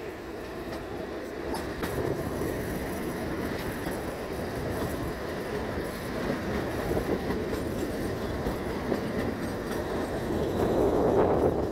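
Narrow-gauge Kalka–Shimla toy train running, heard from on board: a steady rumble of wheels on rail with faint clicks, growing louder near the end.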